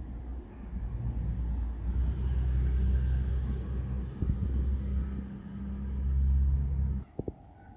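Low, steady rumble of a motor vehicle's engine running, which cuts off abruptly about seven seconds in.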